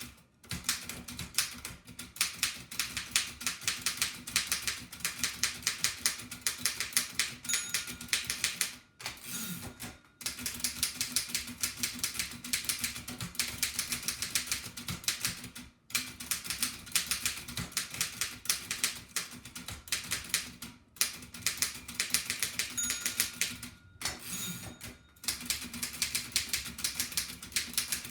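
Restored 1894 Densmore No. 1 typewriter being typed on fast, a rapid run of key and typebar strikes that breaks off in a few short pauses.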